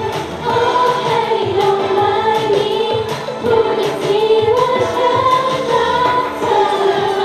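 Girl idol group singing an upbeat pop song together into handheld microphones over a backing track with a steady drum beat, amplified through the stage sound system.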